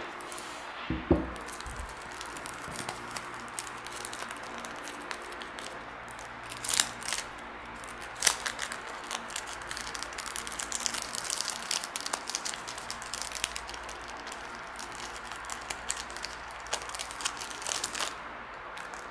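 Clear plastic film crinkling and crackling as it is handled and peeled, with a low knock about a second in and a few louder snaps.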